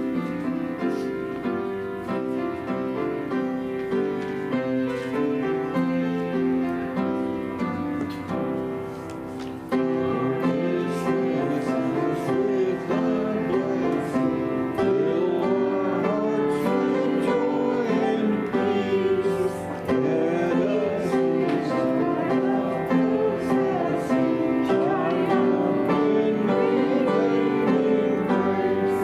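Slow instrumental keyboard music, played as the postlude at the close of a worship service. It grows louder about ten seconds in.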